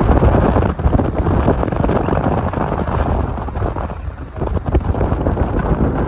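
Wind buffeting the microphone of a phone filming from a moving vehicle, over the vehicle's engine and road noise.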